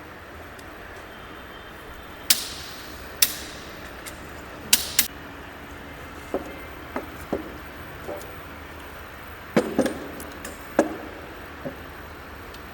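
Torque wrench on the axle box end cover bolts: four sharp metallic clicks in the first half, then a series of lighter metal knocks and clinks.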